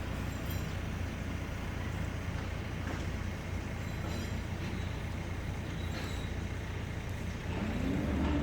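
An engine running steadily with a low hum, its pitch rising and then holding near the end as it revs up.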